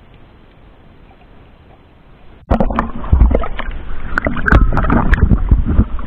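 Muffled, steady hiss of an underwater action camera, then about two and a half seconds in the camera nears the surface and loud, irregular splashing and slapping of water against it takes over.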